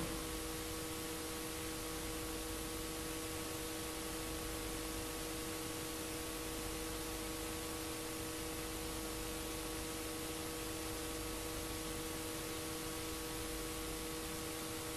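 Steady hiss with a faint, constant hum of a few held tones: the empty sound track of a blank recording, with no programme sound.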